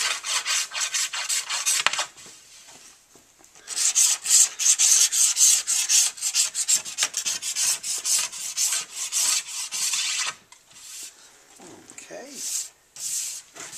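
Wax being scraped off the edges of a cross-country skate ski in quick, hissing strokes. A short run of strokes comes first, then a pause, then a long fast run from about four to ten seconds in, and a few scattered strokes near the end.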